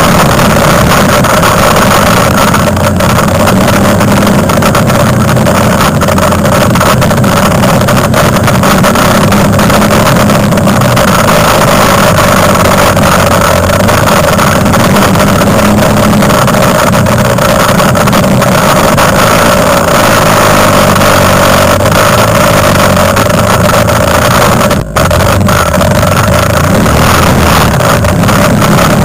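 Quad bike (ATV) engine running steadily under way, loud and close from a camera mounted on the quad. The sound drops out for an instant near the end.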